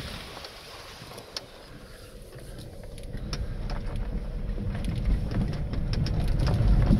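Car driving on a gravel road, heard from inside the cabin: a low tyre and engine rumble that builds steadily louder from about two seconds in, with a few sharp clicks scattered through it.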